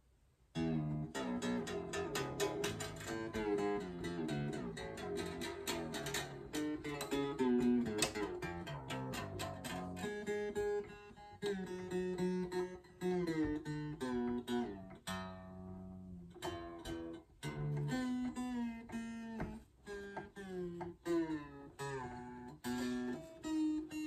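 Background music: a guitar piece of plucked, fingerpicked notes, starting suddenly about half a second in.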